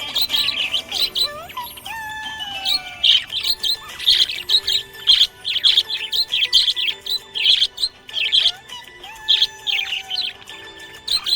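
Budgies chirping busily, a quick run of short high chirps, several a second, with occasional sliding whistles, over background music.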